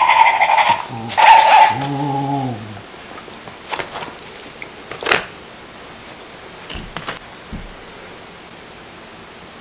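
A rubber barking-ball dog toy plays its recorded yelping bark, two bursts in the first couple of seconds, followed by a lower drawn-out tone that stops about three seconds in. After that come scattered knocks and clicks as the dog mouths and paws the rubber ball.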